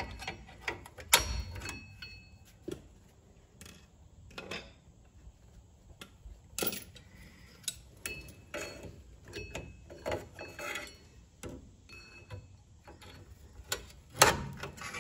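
Parking brake shoe hardware on a 2015 Ram 1500's rear brake being worked by hand with pliers and a screwdriver: irregular metallic clicks, taps and scrapes as a shoe retaining spring clip is fitted. The loudest clack comes near the end.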